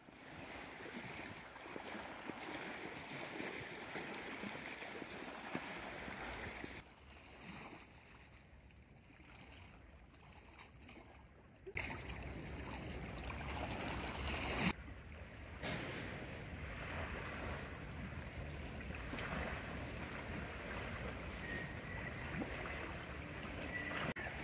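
Small waves lapping on a lake shore, with wind buffeting the microphone. The level drops sharply about a third of the way in and jumps back up about halfway through.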